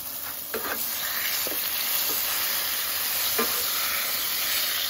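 Beef burger patty sizzling steadily in a skillet, with a few short knocks and scrapes of a spatula against the pan.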